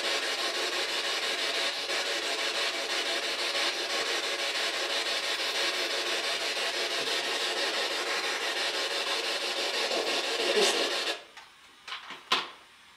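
Ghost-box (spirit box) app putting out steady rasping static with a slight flutter as it sweeps. It cuts off abruptly about 11 seconds in, and a couple of short clicks follow.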